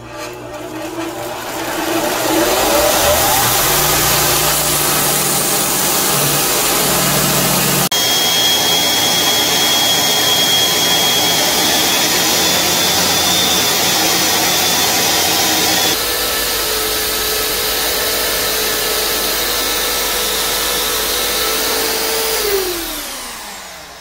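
Electric belt sanders run while a wooden knife handle is ground against the belt, the sound changing abruptly twice. In the last part a sanding disc spun by an electric drill runs, then winds down with a falling pitch near the end.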